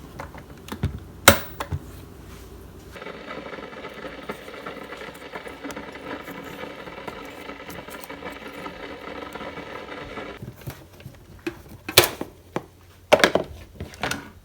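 Sharp clicks and knocks of small hard objects being handled, a few near the start and a cluster near the end. In between, a steady hum starts abruptly about three seconds in and cuts off abruptly about ten seconds in.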